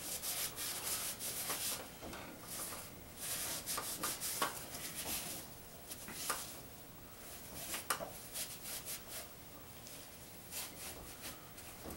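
A cloth rag wiping the cylinder bores of a bare engine block, in irregular rubbing strokes.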